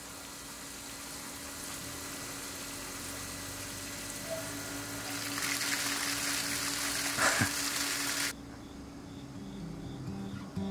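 Water splashing and sloshing in a dog swimming pool, louder for a few seconds in the middle. It cuts off suddenly near the end, and soft acoustic guitar music begins.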